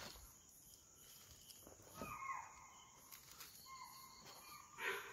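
Faint deer alarm calls: two short calls, each falling in pitch, about two seconds in and again near four seconds, over a steady chorus of insects. The calls are taken as a warning that a tiger or leopard is moving nearby.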